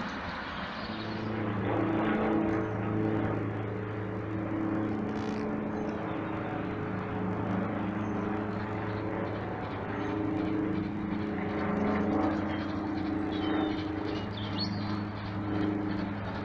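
Steady droning engine hum, a low tone with overtones that wavers slightly and swells and fades a little.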